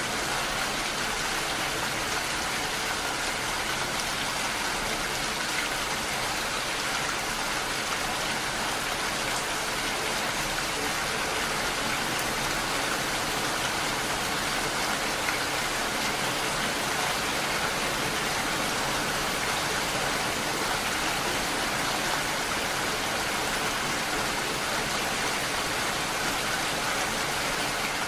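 Steady rain falling: an even, unbroken hiss of many drops, with no thunder or other events.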